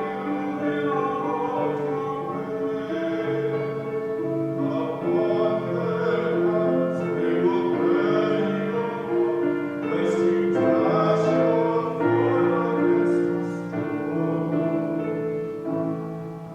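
Singing with instrumental accompaniment: a slow sacred song in held notes.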